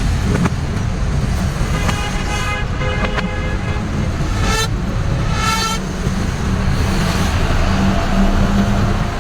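Steady road-traffic noise with a vehicle engine running, and horns sounding twice, about two and about five seconds in.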